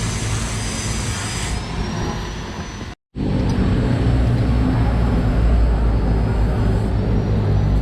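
Electric arc welding on a motorcycle exhaust pipe: a steady, loud noise with a low hum from the welder. It drops out completely for a moment about three seconds in, then resumes with a stronger hum.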